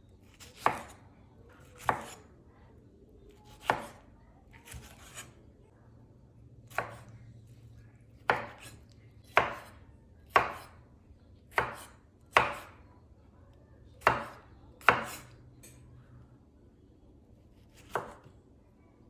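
Knife chopping on a cutting board in slow, unhurried strokes, about a dozen sharp knocks spaced roughly a second apart and not quite regular.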